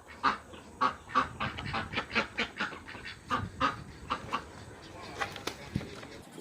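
Farmyard fowl calling in a rapid run of short, honking calls, several a second, that thin out near the end.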